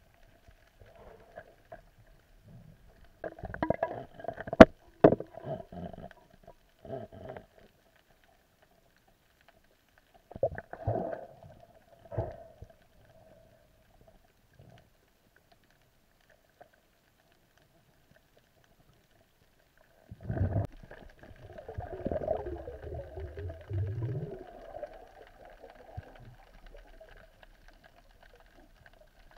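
Muffled underwater noise picked up by a camera in its housing: three spells of knocks and clatter, the loudest with a sharp click about four and a half seconds in, over a faint steady hum.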